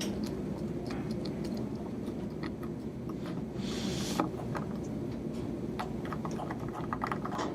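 Small clicks and light scrapes of a screwdriver and tiny parts being handled on an iPhone 5S during reassembly, over a steady low hum. A short breathy hiss comes about halfway, and a quick run of clicks near the end.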